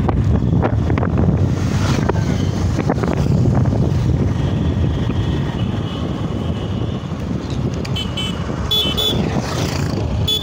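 Motorcycle riding along a road: steady engine drone mixed with wind rushing over the microphone. A vehicle horn gives a few short toots near the end.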